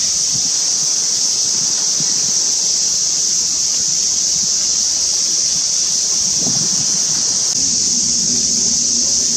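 Steady, high-pitched shrill of a summer insect chorus. A low, steady hum joins in about two-thirds of the way through.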